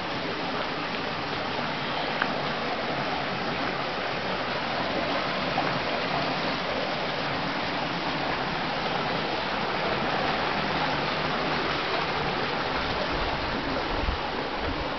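Steady rush of running water at the wooden waterwheel of an old water-powered grinding mill.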